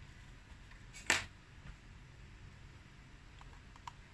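A single sharp clack about a second in, as a tool or part is handled on a phone-repair bench. Near the end come a few faint small ticks as a precision screwdriver is set to the screws of the phone's frame.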